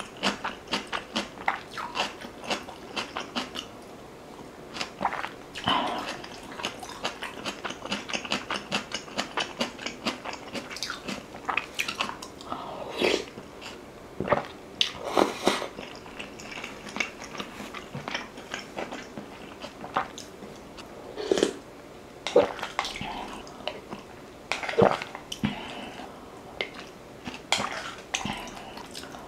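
Close-miked chewing and wet mouth sounds of someone eating rice soaked in beef rib soup: a dense run of small clicks, with a few louder, longer mouth sounds now and then.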